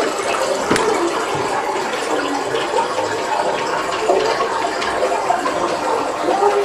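Water running and gurgling.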